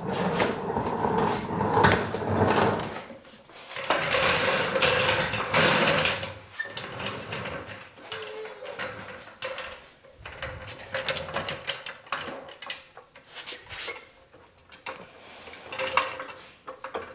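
Scraping, clicks and knocks of tools and equipment being handled and shifted while working on a Jeep's front suspension. The sound is busiest in the first six seconds, then thins to scattered light clicks.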